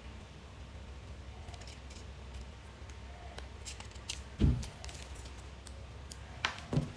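Light clicks and taps of small parts and tools being handled, with a dull thump about four and a half seconds in and two more knocks near the end, over a low steady hum.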